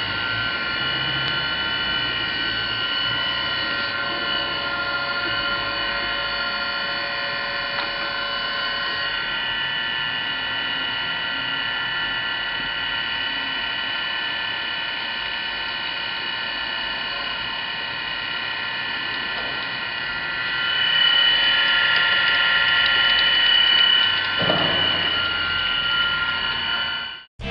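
Chevalier FSG-618M surface grinder running, a steady whine of several high tones over a machine hum. It grows louder for a few seconds about twenty seconds in, and cuts off suddenly near the end.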